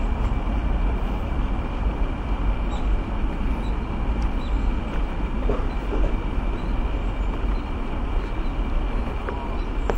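Steady low rumbling outdoor noise with a thin, faint high whine held throughout. A few light clicks come near the end.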